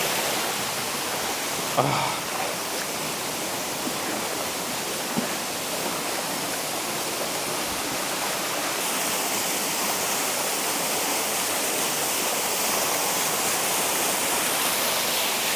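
Buttermilk Falls rushing steadily, a full, even roar of falling water. There are two brief knocks, about two and five seconds in.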